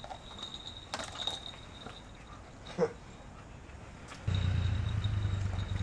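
The little bell on a walking toy dog jingles faintly and high, with a couple of light clicks. About four seconds in, a louder low, steady engine-like hum starts suddenly and becomes the loudest sound.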